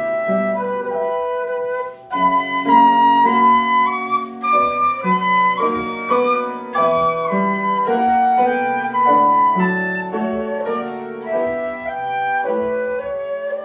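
Flute playing a slow, lyrical melody over piano accompaniment, with a short break between phrases about two seconds in.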